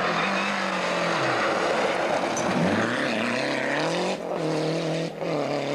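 Lancia Delta Integrale rally car's turbocharged four-cylinder engine revving hard on a gravel stage. The pitch falls and climbs with the throttle, and it breaks briefly twice near the end as gears change, over the hiss of tyres and gravel.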